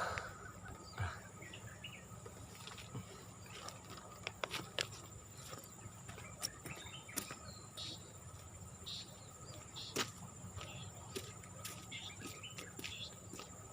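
Steady high-pitched drone of insects, with a few faint clicks, knocks and short chirps scattered through it.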